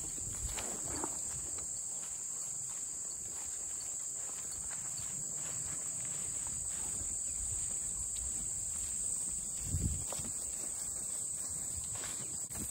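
A steady, high-pitched insect chorus, with footsteps through grass and a short low thump about ten seconds in.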